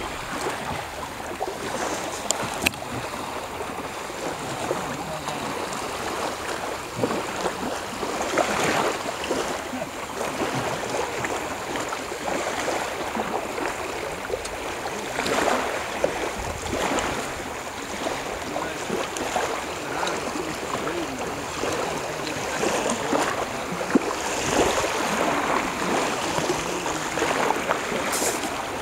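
Shallow water lapping and sloshing around the legs and hull in the shallows of a sandy beach, a steady wash that swells into a few stronger splashy surges.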